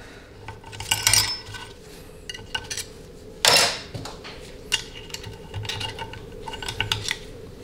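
Small metal valve parts and a pick tool clinking and tapping against an aluminium 700R4 transmission valve body on a workbench, while a valve is worked out of its bore: scattered light metallic clinks with a short ring, the loudest about three and a half seconds in.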